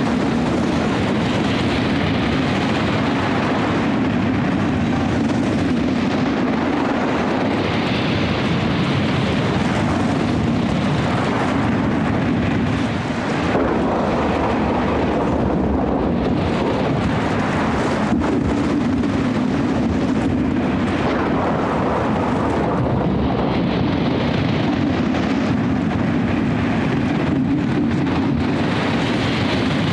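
Wind and breaking sea surf in a storm: a loud, steady rush of waves and wind with no letup.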